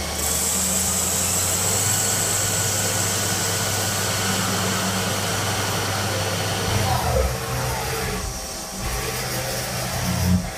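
CNC lathe spindle running while a turning tool cuts a metal bar: a steady machine hum with a high-pitched whine that changes and becomes less even about two-thirds of the way through.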